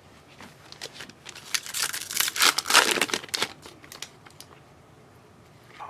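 A trading-card pack wrapper being torn open and crinkled: a burst of crackly rustling and tearing lasting about two seconds, starting about a second and a half in, with a few lighter rustles around it.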